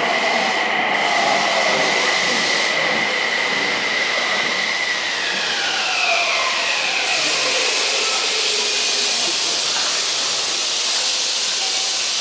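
Toei 6300-series subway train braking into the station, its Mitsubishi GTO-VVVF inverter whining over the rush of the wheels. A steady tone gives way about five seconds in to several tones falling in pitch together as the train slows toward a stop.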